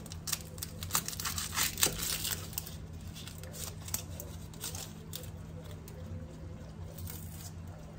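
Dry, papery onion skin crackling and tearing as it is peeled off by hand, thickest in the first three seconds, then thinning to a few scattered clicks. A low steady hum runs underneath.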